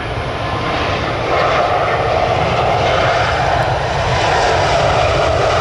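Airliner engine noise, loud and steady, growing louder about a second in and holding.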